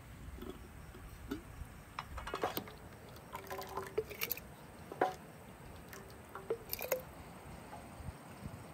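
Wooden spoon scooping thick grape jam, whole grapes in syrup, from a metal basin and spooning it into a glass jar. Wet squelching and dripping, with several sharp knocks and clinks of the spoon against the jar and basin between about two and seven seconds in.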